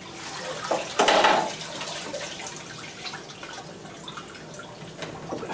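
Water splashing and dripping around a lifted-out sump pump and its disconnected discharge pipe, with a louder splash about a second in.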